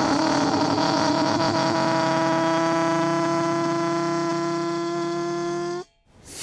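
Dry ice pressed against heated metal, the metal singing a steady tone rich in overtones as the sublimating gas sets it vibrating, its pitch creeping up slightly. It cuts off abruptly about six seconds in, and a short hiss follows at the very end.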